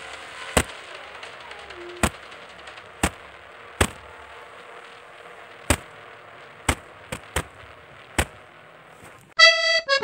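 About nine sharp cracks at irregular intervals over a faint steady hiss. About nine seconds in, loud accordion music starts.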